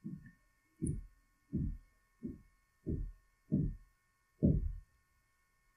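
Seven dull, low thumps in an even rhythm, about three every two seconds; the last one is the loudest.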